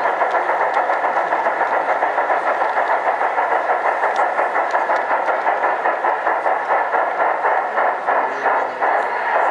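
G-scale model train running on the layout, giving a fast rhythmic chuffing of about five beats a second over a steady hiss; the beat blurs and dips briefly near the end.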